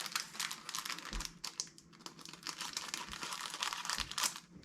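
Baseball cards and their pack wrapping being handled: a run of light, rapid clicks and rustles.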